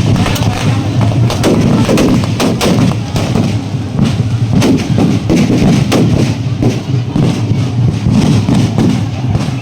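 Large drums beaten loud and fast, with dense strokes several times a second that run together into a heavy, booming clatter.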